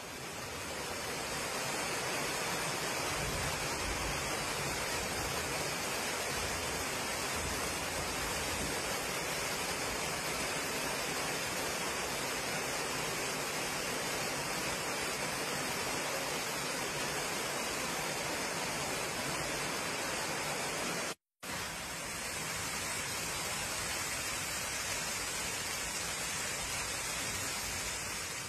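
Floodwater gushing through a subway station's broken glass doors and pouring down into the station, a steady rushing noise of water. The sound cuts out for a moment about three-quarters of the way through.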